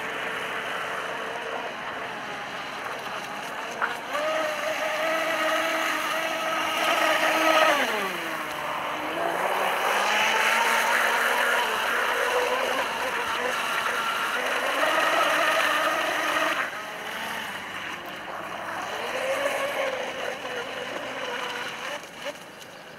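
Homemade brushless-motor RC catamaran running at speed: a steady electric motor whine over the hiss of water. The pitch dips low about eight seconds in and then climbs again.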